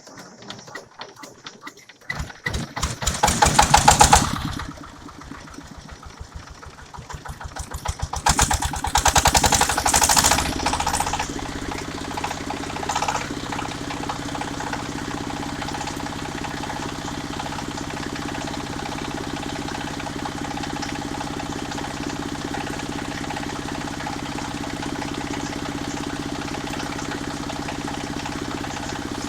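Small engine powering a portable circular sawmill being started. It revs up hard around three to four seconds in, falls back, revs again around eight to ten seconds, then settles into steady running.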